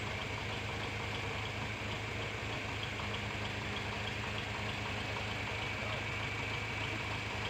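Farm tractor engine idling steadily.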